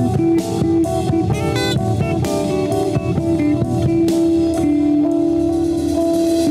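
Instrumental rock music: guitar picking a quick run of notes over drums, then settling onto one long held note about two-thirds of the way through.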